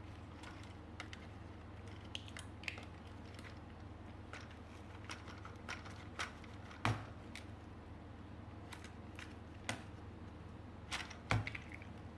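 Scattered light clicks and taps of hands handling objects, with two louder knocks about seven and eleven seconds in, over a steady low hum.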